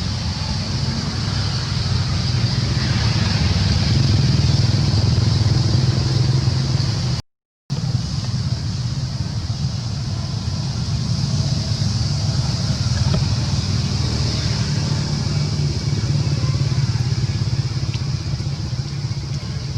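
Steady outdoor background noise: a continuous low rumble with a steady high hiss above it, cut off completely for about half a second around seven seconds in.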